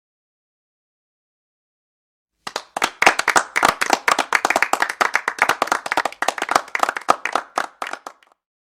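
Silence, then hands clapping for about six seconds, starting about two and a half seconds in. The individual claps are distinct, and they thin out and stop near the end.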